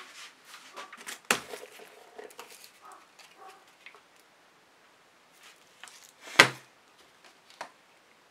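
Knocks and taps from handling painting tools and the canvas on a work table, with two sharp knocks, about a second in and about six seconds in, and softer clicks and rustles between.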